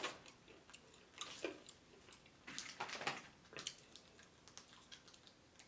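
Close-up chewing of crispy fried food: irregular crunches and wet smacks, a few sharper crackles about a second and a half and three seconds in.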